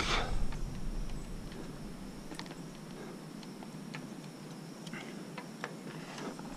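Scattered light clicks and ticks of a masthead wind vane being handled and fitted onto its mount, with a brief rustle right at the start, over a low steady rush.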